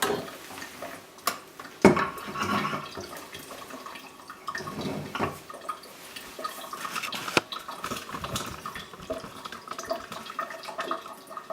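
Copper still column being handled and opened for a refill: scattered metal clinks and knocks, with a sharp knock about two seconds in and another past seven seconds, amid dripping and splashing liquid.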